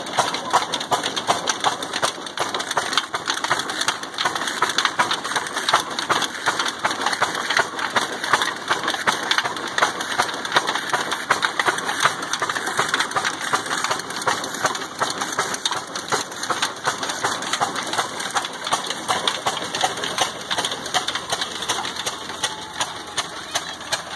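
Old black desi Ruston-type single-cylinder diesel engine running steadily, driving a chakki flour mill through flat belts and a pulley line shaft: a dense, rapid clatter of engine, slapping belts and grinding stones.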